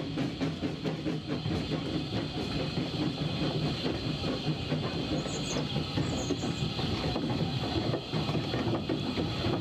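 Steam locomotive working along the line, heard from its footplate: a steady run of exhaust beats, steam hiss and clatter from the running gear and rails.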